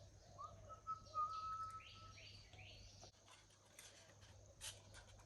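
Faint birdsong: a held whistle-like note for nearly two seconds, some short rising calls, and a short call repeated every second or so. A couple of light clicks near the end.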